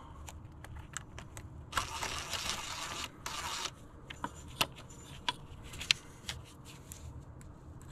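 Socket ratchet on an extension, fitted with a T20 Torx bit, clicking as it backs out the screws of the PCV valve. There is a run of fast ratcheting about two seconds in, then single clicks.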